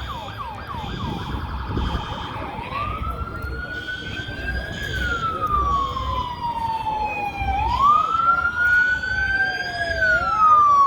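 Fire apparatus siren on a response: a few quick sweeping chirps and a fast warble, then a slow wail that rises and falls twice, with a second siren's wail joining near the end, over a low vehicle rumble.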